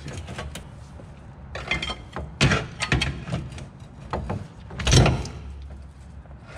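A 2000 Chevy Malibu's right front CV drive axle is worked free of the transaxle by hand, with irregular metal clunks and scrapes. The loudest is a heavy thud about five seconds in.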